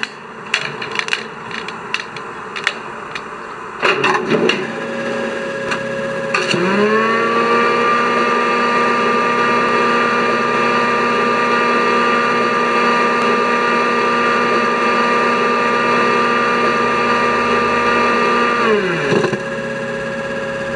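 Startup sequence of the ESU LokSound XL V4.1 sound decoder in an LGB model of the Rhaetian Railway Ge 6/6 I 'Krokodil' electric locomotive, played through the locomotive's speaker: pantograph, main switch, transformer spin-up and compressor. A run of clicks, a bang about four seconds in, then a steady hum, joined about six seconds in by a whine that rises, holds steady and winds down near the end.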